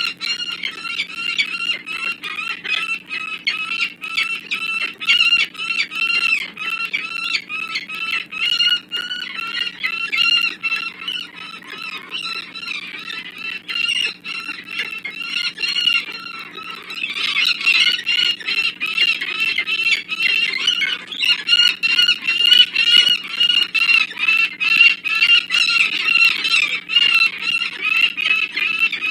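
Peregrine falcons cacking: a long run of harsh, rapidly repeated kak-kak calls with no break, growing louder and rougher a little past the middle. This is the peregrine's alarm and aggression call, given here during a territorial fight between males.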